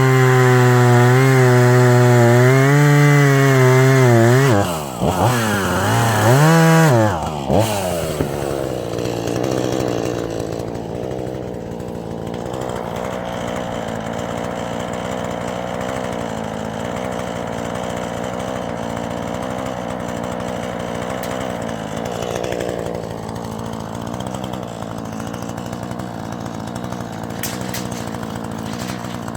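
Husqvarna 440e two-stroke chainsaw at full throttle in a cut, its pitch wavering under load, then dropping off about four seconds in. It revs up briefly twice and settles to a steady idle from about eight seconds in.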